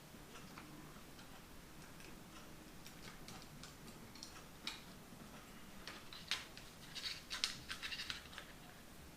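Faint clicks and scratches of small repair tools and fingers working on the plastic of a Nintendo Switch Joy-Con as parts are prised loose, coming thicker from about six seconds in.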